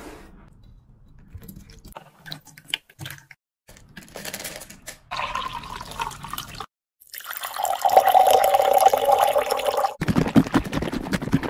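Thai tea poured through a funnel over ice and tapioca pearls in a clear plastic container: splashing and trickling, heavier and steadier for about three seconds in the second half, with a few light knocks near the end.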